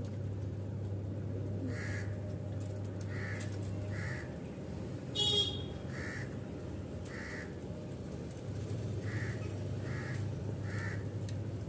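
A crow cawing over and over, about ten short caws in loose runs, with one brief, louder shrill call a little after five seconds in. A steady low hum runs underneath.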